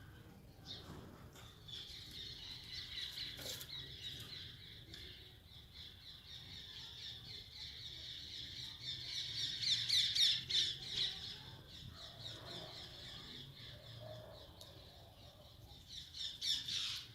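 Birds chattering and calling in a rapid, dense run that swells to its loudest about two-thirds of the way through, then fades, with a short burst of calls again near the end.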